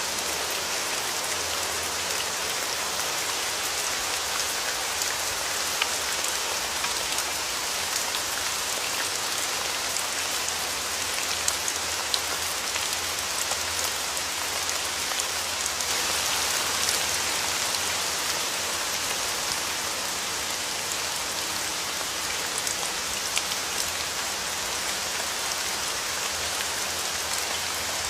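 Steady rain falling on a hard surface, a dense even patter with scattered louder individual drops.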